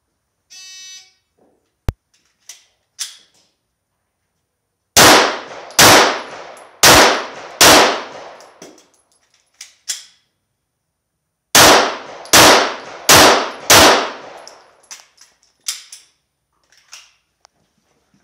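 A short beep, then eight pistol shots in two strings of four, each string fired as two quick pairs, with a pause of about four seconds between the strings for a magazine reload. Each shot echoes briefly.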